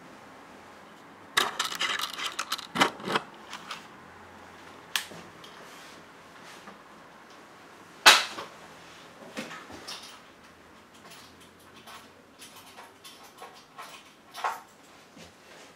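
An old spring-loaded microphone boom arm being handled and moved: a burst of rattling clicks from its springs and joints about a second and a half in, a sharp knock around eight seconds, and scattered light ticks after.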